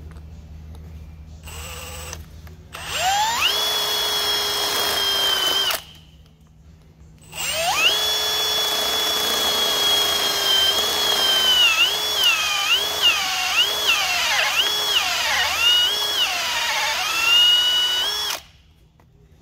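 A drill with a hollow core bit boring out the lead intercell connector posts of an industrial battery. It spins up and runs with a steady whine for about three seconds, stops, then runs again for about ten seconds. In the second run its pitch dips repeatedly as the bit bites into the lead.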